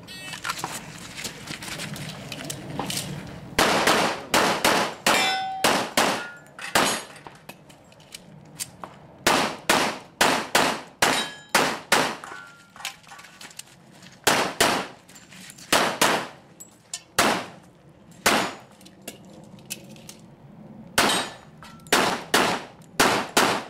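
Handgun fired in rapid strings of several shots, with pauses of a few seconds between strings. Steel target plates ring as they are hit.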